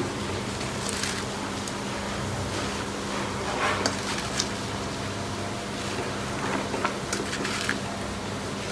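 Water boiling in a kadhai on a gas stove as handfuls of spinach leaves are dropped in, with a few soft rustles and light taps. A steady low hum runs underneath.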